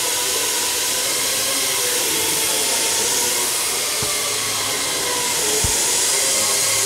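Steady, fairly loud rushing hiss of air-moving machinery, like a blower or extractor running, with two light knocks about four and five and a half seconds in.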